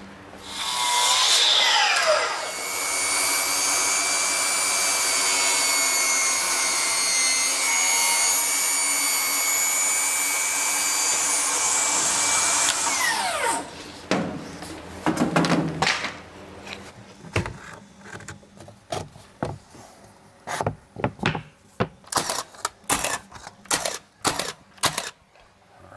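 A portable table saw spins up, runs steadily for about twelve seconds cutting a toe-kick board, and winds down, then runs again briefly. After that, a cordless nailer fires a string of sharp, irregular shots, fastening the toe kick along the base of the cabinets.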